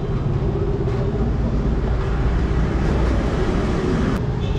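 Steady low rumble and hiss of street background noise, with one short sharp click about four seconds in.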